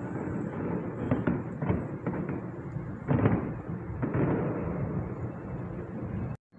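Fireworks going off at a distance: a run of bangs with the loudest burst about three seconds in, over a steady rumble of background noise.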